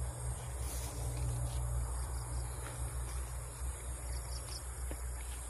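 Insects chirring steadily in a high pitch, with short chirps now and then in quick groups of three, over a steady low rumble.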